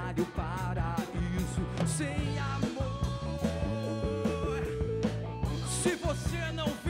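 Live rock band playing: a male singer's vocals over drums, electric bass and electric guitar.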